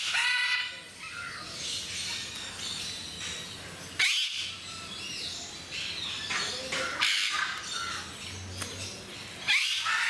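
Eclectus parrots squawking: four loud, harsh calls a few seconds apart, with softer chattering calls between them.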